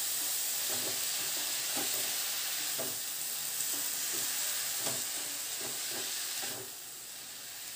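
Chopped cauliflower stems and leaves sizzling in hot mustard oil in a metal kadhai, stirred with a wooden spatula that scrapes through the vegetables in irregular strokes. The sizzle drops off a little before the end.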